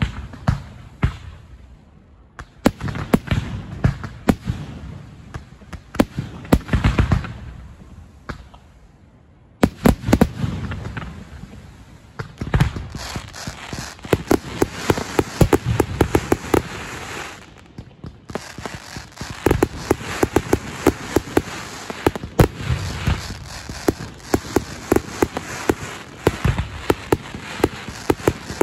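Festival fireworks finale: rapid bangs and crackling from aerial rockets, scattered over the first nine seconds, then a dense, almost continuous barrage from about ten seconds on, broken by a brief gap near eighteen seconds.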